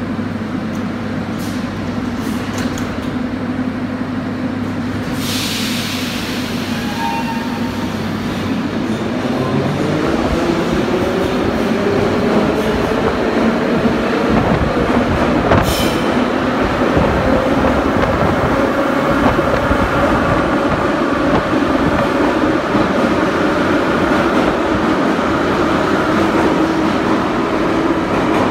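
81-717.5/714.5 metro train pulling out of a station. A steady hum at standstill, a short hiss of air about five seconds in as the doors close, then from about nine seconds the traction motors' whine rising in pitch as the train accelerates, with wheel and rail noise and a sharp knock around fifteen seconds.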